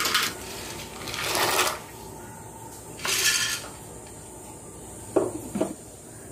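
Macaroni in water in a steel pot on the stove, with a few short bursts of hissing, splashing noise and, near the end, two sharp metallic clinks.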